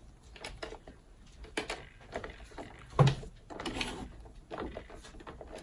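Hard plastic clicks and knocks as the bare shell and arm linkages of a Fisher-Price Dance and Play Puppy toy are handled and its arms moved by hand, with one louder knock about three seconds in.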